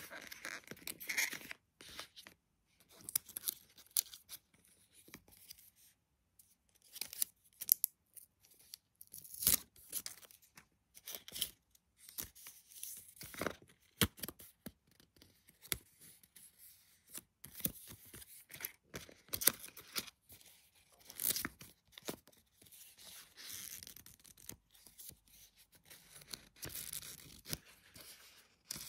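Paper and cardboard packaging from a phone box being handled and torn: irregular short rustles, scrapes and tearing sounds with sharp clicks, as a coiled charging cable in its paper wrap and paper inserts are lifted out.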